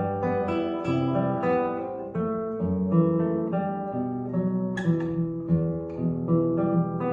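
Alhambra 11P nylon-string classical guitar being played: a run of plucked notes, with a melody over bass notes and a sharper, brighter accent about five seconds in.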